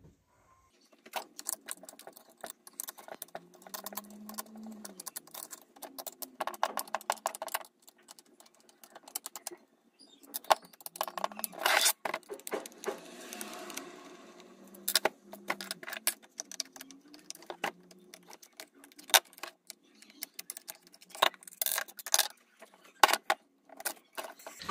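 Quick, irregular clicks and rattles of screws, tools and plastic casing parts as a Hilti rotary hammer drill is taken apart, in sped-up footage.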